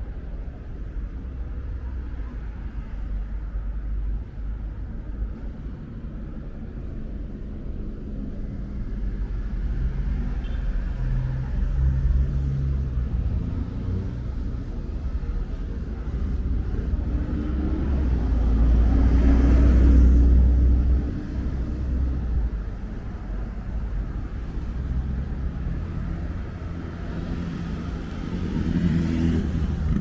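Road traffic: passing vehicles make a steady low rumble. One louder pass swells up about two-thirds of the way through and then fades.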